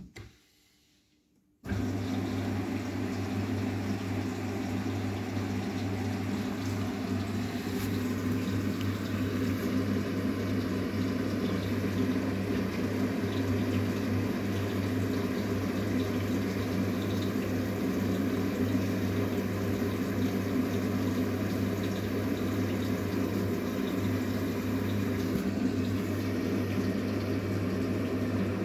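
Arçelik 9120M washing machine filling with water: a short click, then a couple of seconds in water starts rushing steadily into the machine with a low, even hum, as at the start of a wash cycle.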